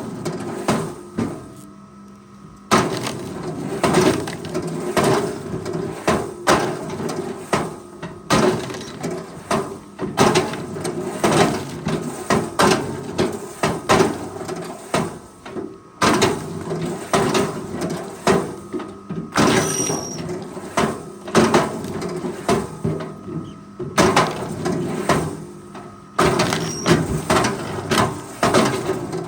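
Logs knocking and clattering again and again as a forestry machine handles timber, over a steady engine hum. The sound breaks off and restarts abruptly several times.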